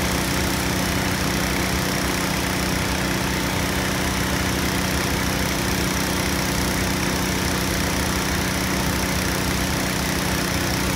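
Engines running steadily at idle: a constant drone with a low hum and an even hiss over it, unchanging throughout.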